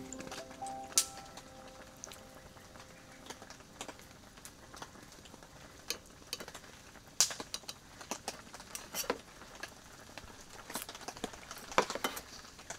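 Metal chopsticks clink and tap against a stainless steel bowl in scattered sharp clicks, over a faint patter of rain. The last held notes of music fade out in the first few seconds.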